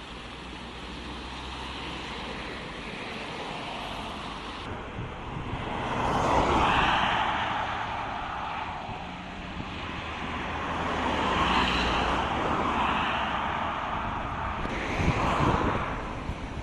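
Road traffic noise: vehicles passing on a highway, the sound swelling and fading three times.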